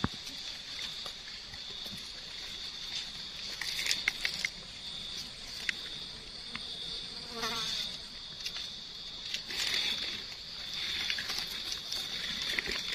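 A steady, high-pitched insect drone, with the crackle and rustle of dry leaf litter as hands dig and cut mushrooms with a knife. The rustling is loudest about four seconds in and again near ten seconds.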